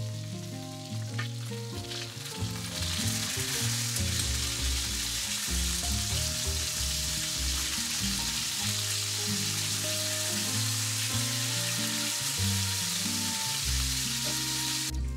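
Food frying in a pan with a steady, loud sizzle that comes in about three seconds in and cuts off suddenly near the end.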